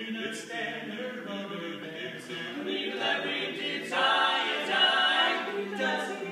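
Barbershop quartet of four male voices singing a cappella in close harmony, holding and shifting sustained chords, with a swell in volume about four seconds in.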